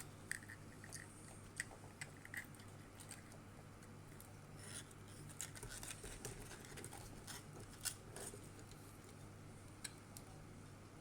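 Faint scattered clicks and small handling noises of a push-fit IR sensor being worked out of a 3D-printed plastic robot body, over a low steady hum.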